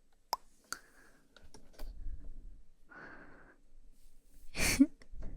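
A woman's close-miked breathing for ASMR: a couple of sharp mouth clicks early, soft breathy exhales about one and three seconds in, and a louder breathy sigh with a touch of voice near the end.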